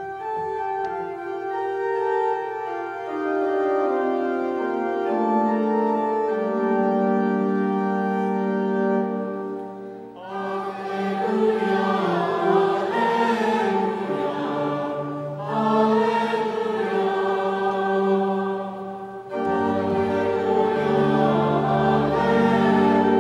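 Organ playing slow held chords; about ten seconds in, a choir starts singing with it, and deeper bass notes join near the end.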